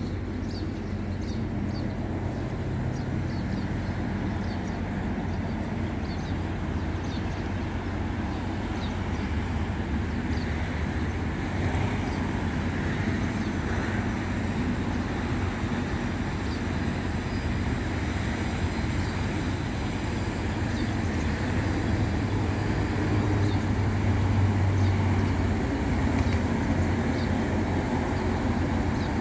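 Steady road traffic running past on a city street, a continuous low rumble that swells a little near the end.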